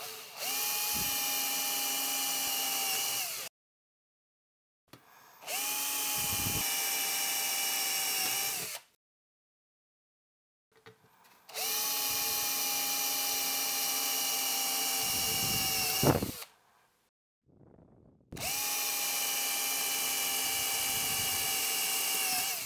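Teal Makita cordless drill boring pilot holes through a metal amplifier chassis: four separate runs of steady motor whine, each a few seconds long. The third run ends with a sharp snap and a brief rumble as the bit goes through into the wood backing.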